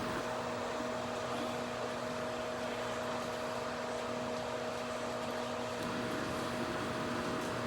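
Steady hum of running bench equipment: a fan-like hiss with a few constant low tones, unchanging throughout.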